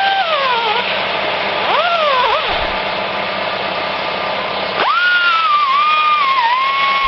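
Air-operated right-angle grinder with a small 80-grit sanding disc touching up the teeth of a chainsaw chain. It spins up to a high whine over a steady hiss, dipping in pitch as the disc bears on a tooth, then winds down. It does this three times: a wind-down just after the start, a short burst about two seconds in, and a longer run from about five seconds in.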